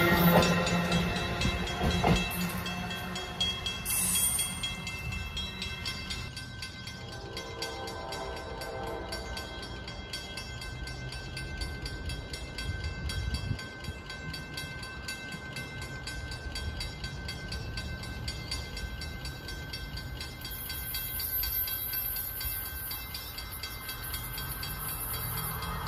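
An Amtrak train of Amfleet passenger coaches passes close by, its last car rolling past and its sound fading away over the first few seconds into a low steady rumble. Near the end the sound builds again as another train approaches.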